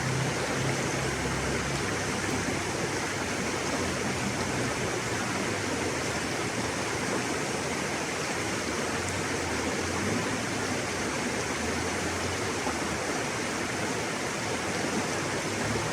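River water rushing and flowing steadily, an even, unbroken roar of moving water.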